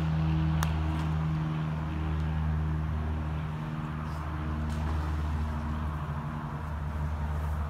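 A motor droning steadily at a low, even pitch, with a couple of faint clicks in the first second.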